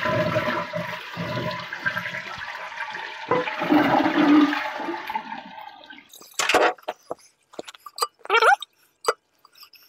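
Toilet flushing with its water supply shut off: the tank empties and the rush and gurgle die away after about five seconds with no refill. Then come a few sharp clicks and knocks and a short scrape as the porcelain tank lid is lifted off.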